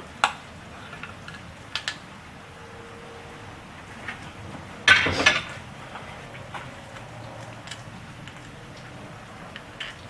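Light clicks and knocks of small objects handled on a workbench, with a louder brief clatter about five seconds in.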